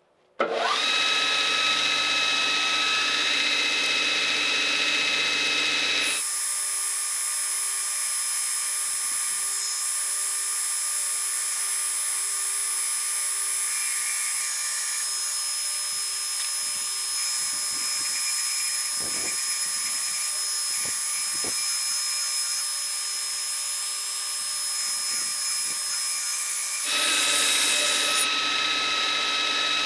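Belt grinder starting up about half a second in, its motor quickly rising in pitch to a steady whine, then running while a forged steel knife blade is ground against the abrasive belt. The sound changes abruptly twice.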